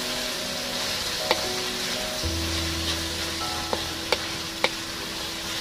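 Taro stolons with tomato and chili sizzling in a wok while a spatula stirs them, with a few sharp clicks of the spatula against the pan. A low steady hum comes in about two seconds in.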